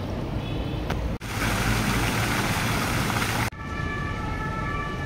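Outdoor street noise: a steady rush of traffic and wind that cuts abruptly twice, with several steady high tones joining about three and a half seconds in.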